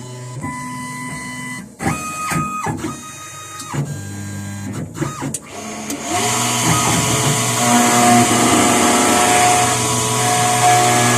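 Computerised key-cutting machine starting a job. Its motors whine through several short positioning moves that glide up and down in pitch, then about six seconds in the cutter spins up and runs steadily, cutting a key blank.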